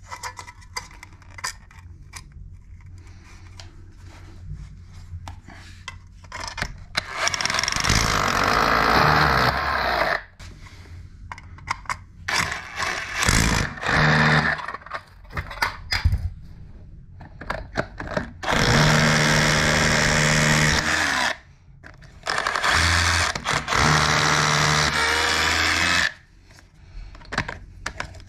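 Cordless DeWalt XR rotary hammer drill boring into brick in several bursts of a few seconds each, cutting the recess that lets a surface-mounted metal socket back box sit flush in the wall. Light clicks and taps of the box being handled against the wall come before the first burst.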